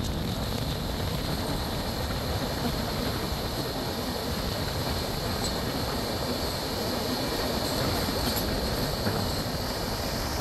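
Passenger train running at speed: a steady, unbroken rumble and rush of the coaches on the rails.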